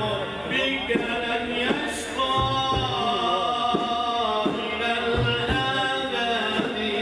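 A male munshid singing an Islamic devotional praise song (inshad) for the Prophet's birthday, holding long melodic notes, with a drum striking a beat underneath.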